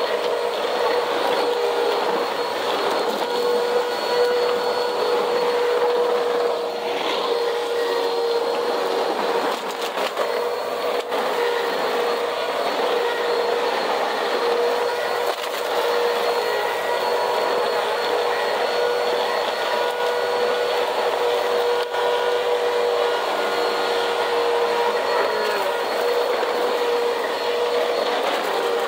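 Vacuum cleaner running steadily at a constant motor pitch while it sucks dirt up off a cement floor, with faint ticks of grit going through.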